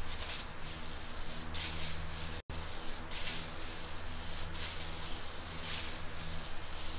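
Freshly roasted coffee beans stirred with a spatula in a stainless steel mesh strainer, a dry rustling swish with each stroke, being cooled in front of an electric fan to stop the roast. The fan's steady low hum runs underneath.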